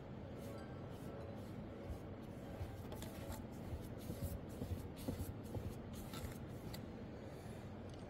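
Wide flat wash brush sweeping water across rough watercolour paper: faint, irregular soft swishes as the bristles drag over the sheet.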